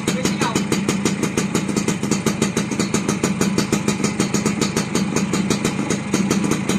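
Motorcycle engine idling: a rapid, even putter of about ten exhaust pulses a second, held steady.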